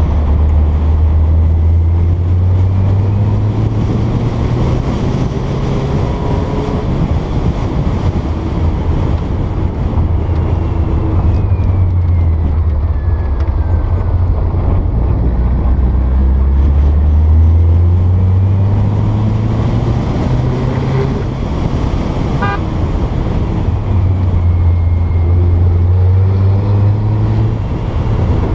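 Porsche 912's flat-four engine running on a downhill mountain road. The revs climb and drop back three times, at the start, in the middle and near the end, as the car is driven through the bends.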